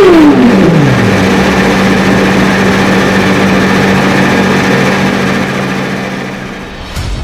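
Suzuki GSX-R 1000 inline-four through a Dominator full exhaust, its revs falling steeply in the first second as the throttle is shut from a high-rpm hold. It then settles into a steady lower drone that fades over the last couple of seconds, with a couple of sharp clicks near the end.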